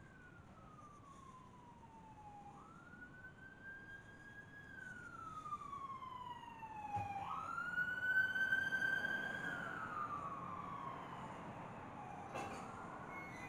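Emergency vehicle siren wailing, its pitch rising and falling in slow cycles, growing louder to a peak about two-thirds of the way through and then fading. A short click sounds near the end.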